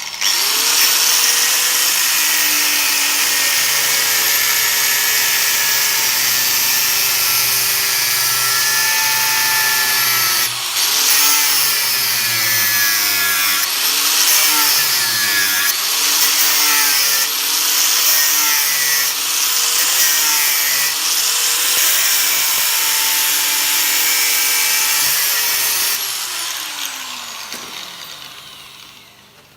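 Power grinder cutting through the old wheel-hub bearing's inner race, stuck on the hub, running loud and continuous with its pitch wavering as the disc bites. It spins down near the end.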